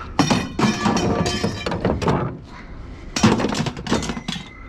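Pieces of scrap metal being thrown onto a pile, clanging and ringing in two rattling bursts, a longer one starting just after the start and a shorter one about three seconds in. A faint steady tone begins near the end.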